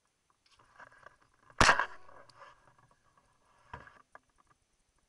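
A single shotgun shot about a second and a half in, picked up by a camera mounted on the barrel itself, its report dying away over half a second. A fainter sharp knock follows near the end.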